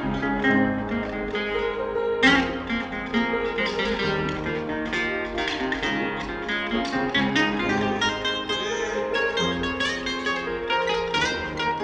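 Instrumental music of plucked strings: a quick run of picked notes over lower held notes, with sharper accents about two seconds in and near the end.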